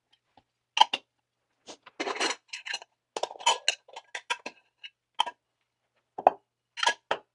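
Metal lids being set and pressed onto metal paint-can style candle tins by hand: irregular clinks and clatters of tin on tin, some of them ringing briefly.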